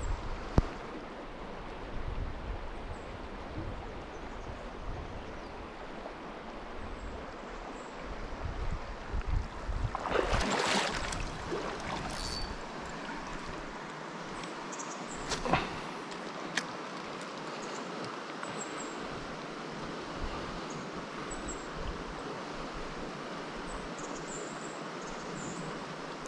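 Small mountain trout stream running steadily, with a low rumble that stops about ten seconds in. A brief louder rustle comes about ten seconds in, and a couple of short sharp clicks follow a few seconds later.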